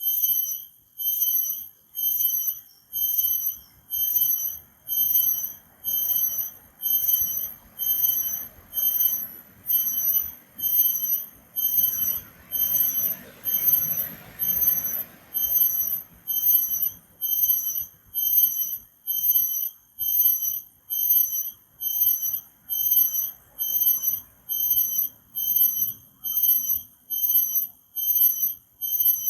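Cricket chirping: a shrill, high-pitched chirp repeated steadily about once a second, each chirp lasting around half a second.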